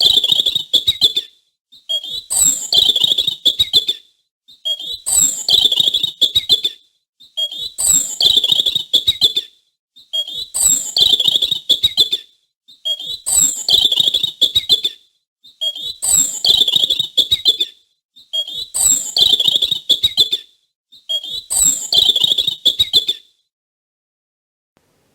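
An animal call or song of about two seconds, high and rapidly pulsed, repeated nine times at even intervals of about two and a half seconds, stopping shortly before the end.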